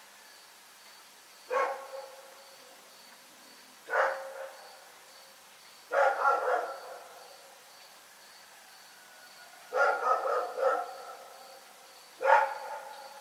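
A dog barking repeatedly, a single bark or a quick run of two or three barks about every two seconds, with short pauses between.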